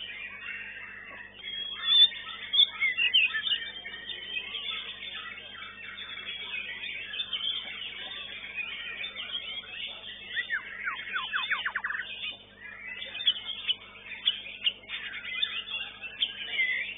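White-rumped shama (murai batu) singing a fast, varied stream of chirps and whistles, with a rapid run of falling notes about ten seconds in.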